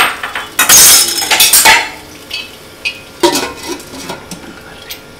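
Metal slotted spoon clinking and clattering against a stainless steel kadai several times, then another clatter a little past three seconds as a glass lid is set on the pan to cover it, over a low simmering sizzle.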